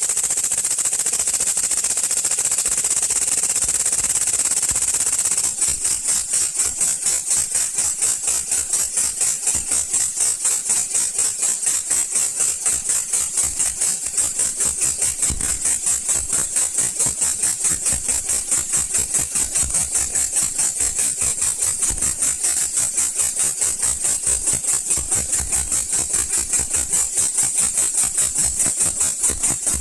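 Three-piston radial pneumatic engine running on compressed air, its exhaust a rapid, continuous hissing chuff. About five seconds in it settles into evenly spaced puffs of air, several a second.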